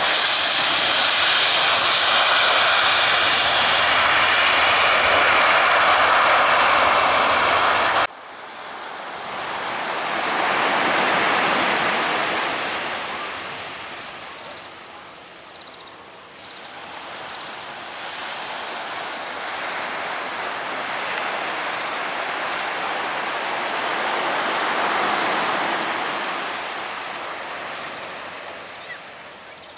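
Loud, steady noise of aircraft engines passing close, cut off abruptly about eight seconds in. After that, a quieter rushing sound of surf on the beach swells and fades twice.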